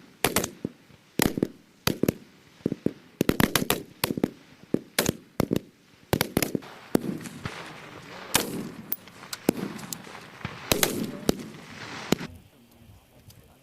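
Rifle fire from a firing line of M4 carbines and M27 infantry automatic rifles: many sharp single shots from several shooters at irregular spacing, some in quick clusters, each with a short echo. The shooting stops about a second before the end.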